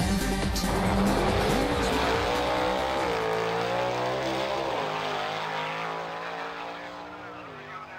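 Race car engine sound effect running and falling in pitch in a few steps while fading out.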